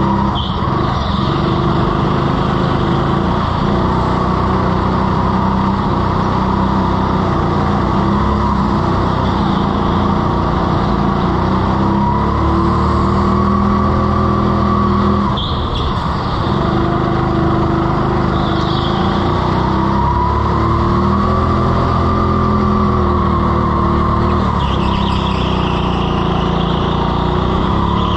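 Go-kart engine running hard, its pitch rising and falling as the kart accelerates and lifts for corners, with a brief dip about halfway through. A few short tyre squeals come as the kart slides on the slippery floor.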